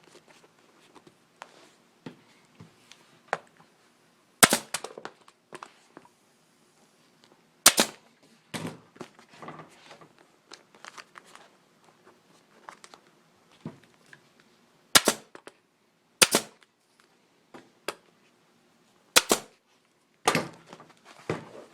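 Staple gun firing staples to fix an upholstery cover to a motorcycle seat pan: about six loud, sharp shots at irregular spacing, with fainter clicks and handling noises in between.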